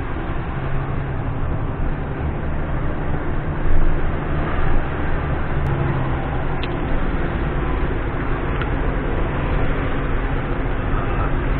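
Diesel engine of a loaded concrete mixer truck running steadily under load, with a few faint clicks midway.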